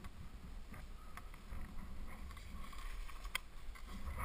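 Low wind rumble on an outdoor action-camera microphone, with a few faint clicks from ski and line gear being handled.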